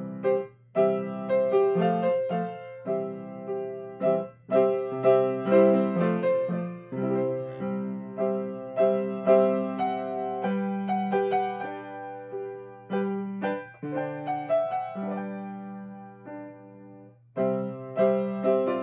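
Yamaha grand piano played in an improvised, playful passage in C major: left-hand chords under a right-hand melody, each struck note ringing and decaying. The playing thins to a lull about three-quarters of the way through, then picks up again, over a steady low hum.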